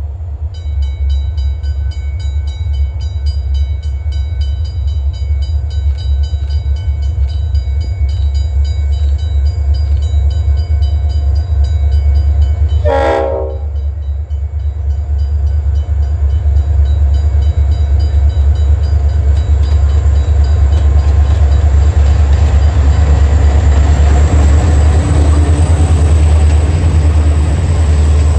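Level crossing bells ringing as a diesel-hauled grain train approaches. About thirteen seconds in, the lead locomotive gives one short horn blast. After that, the locomotives' diesel engines and the rolling wagons grow steadily louder as the train comes close and passes, over a constant low rumble.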